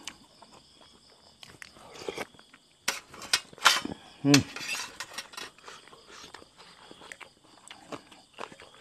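Close-miked chewing of boiled buffalo skin: wet mouth clicks and smacks, loudest about three seconds in, with a brief hum from the eater just after. Insects trill faintly and steadily behind.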